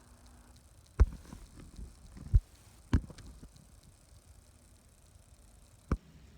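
A few dull thumps and knocks at uneven intervals, four of them clearly louder than the rest.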